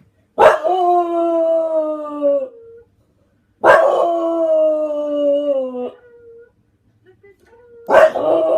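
English bulldog howling: three long howls, each beginning with a sharp yelp-like onset and then held for about two seconds while sliding slightly down in pitch. A faint, thin, steady tone is heard in the gaps between them.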